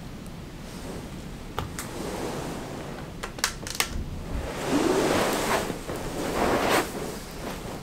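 A few light clicks, likely a battery camping lantern's switch being pressed as the light goes out. These are followed by two long swells of rushing noise.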